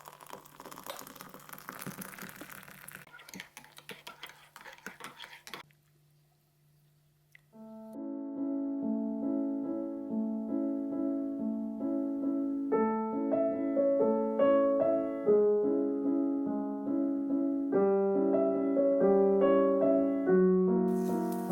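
Background noise for the first few seconds, then a short silence. From about eight seconds in, piano music plays a steady, repeating pattern of notes and chords that grows louder.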